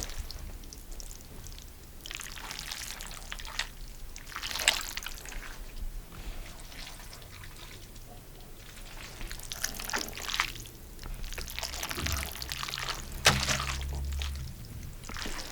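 Wet, irregular squelching and squishing of pesto-dressed green spaghetti being squeezed and mixed by hand, made as a gore sound effect.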